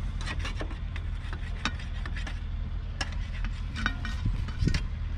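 Irregular crunching and rustling, the sound of footsteps through dry straw stubble, over a steady low rumble.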